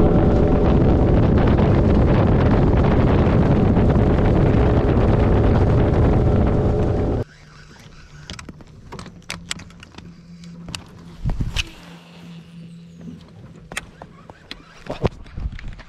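Outboard motor of a small aluminium boat running at speed, with wind and rushing water, cutting off abruptly about seven seconds in. After that the sound is much quieter: a faint steady hum with scattered light clicks.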